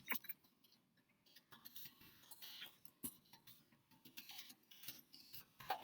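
Faint, scattered clicks of computer keyboard keys being typed at an uneven pace, with long gaps between them.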